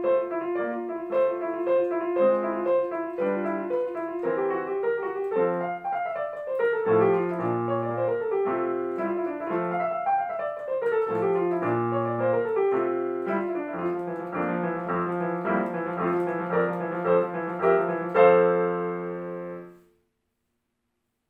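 Digital piano played fast in a classical solo, with running scale passages and repeated bass notes, ending on a loud final chord about eighteen seconds in that dies away within two seconds.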